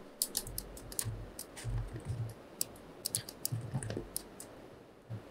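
Computer keyboard and mouse being used, with irregular light clicks and taps, some of them with a soft low thump.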